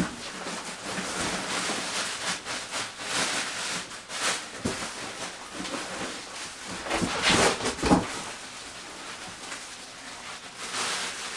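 Rustling and scraping of drill press packaging being handled while the motor head is unpacked, with a few knocks, the loudest a little after seven seconds in.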